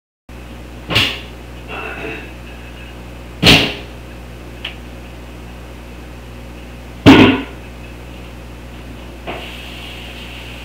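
Three loud thumps a few seconds apart, with a few fainter knocks between them, over a steady hum.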